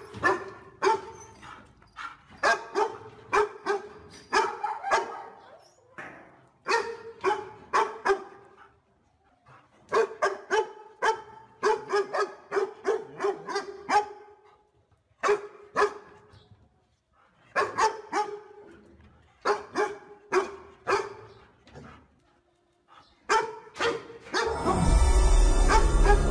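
A dog barking repeatedly, in runs of several sharp barks separated by short pauses. About two seconds before the end, loud eerie music with a deep rumble comes in and covers everything.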